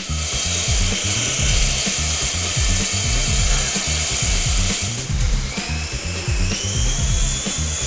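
Whirring of a toy RC helicopter's small electric motors and rotors over background music with a steady beat; about five seconds in the whir turns into a whine that rises in pitch.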